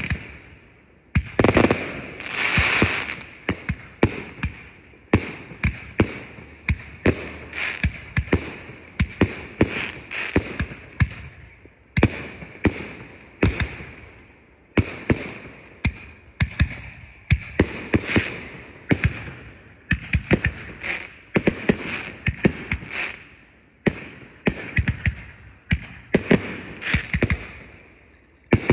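Aerial fireworks firing in a steady barrage: a string of sharp bangs, about one or two a second, as shells launch and burst into stars.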